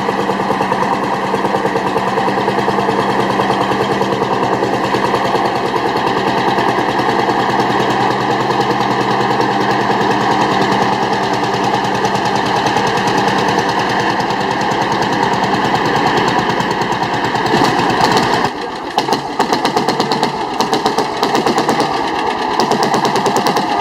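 Old engine running with a fast, even beat. About 18 seconds in, the low hum drops away and the sound turns uneven and choppy.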